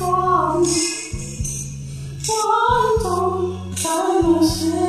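A woman's voice singing a slow Mandarin ballad over a karaoke backing track with steady bass notes, pausing briefly between phrases.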